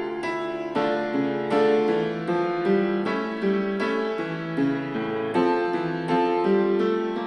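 Piano music played back through Creative Pebble Plus 2.1 desktop speakers and picked up by a microphone: a steady stream of struck notes, with little deep bass.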